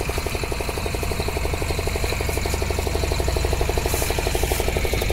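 Fishing boat's engine running steadily at low speed, a low hum with a rapid, even pulsing of about ten beats a second.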